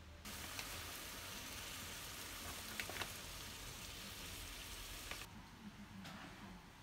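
Water bubbling at a boil around sausages in a small rectangular pan, a steady hiss with small pops. It cuts off suddenly about five seconds in, leaving only faint, soft handling sounds.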